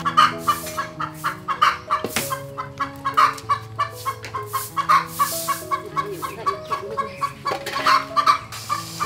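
Chickens clucking over and over, with background music playing steady held notes underneath.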